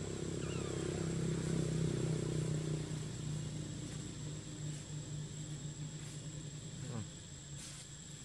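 Insects buzzing: a steady low drone with a thin, steady high-pitched whine over it, louder in the first few seconds. A short sound sliding in pitch comes about seven seconds in.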